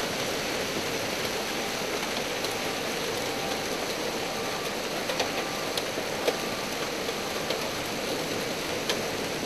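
A hailstorm with heavy rain: a steady hiss, with scattered sharp ticks of hailstones striking hard surfaces.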